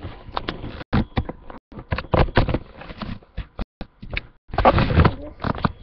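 Rustling and knocking as things are handled close to the microphone, in irregular bursts with several sharp knocks.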